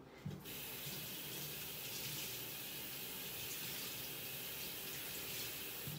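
Kitchen sink faucet turned on about a third of a second in and running steadily, warm water wetting a microfiber cloth under the stream.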